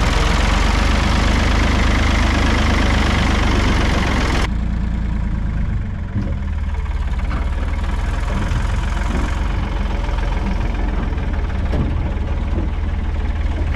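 Diesel tractor engine idling steadily. About four and a half seconds in, the higher-pitched hiss over it cuts off abruptly, leaving the low engine note.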